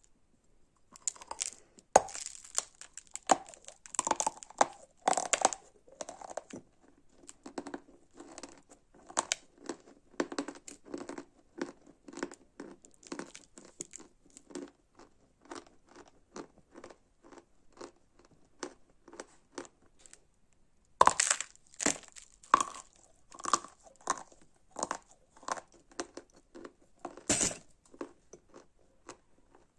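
A lump of Kursk chalk being bitten and chewed. Loud, sharp crunches come with the bites, around two seconds in, again about 21 seconds in and near the end. Between them is steady crunchy chewing about twice a second as the powdery, sandy chalk breaks into small gritty pieces.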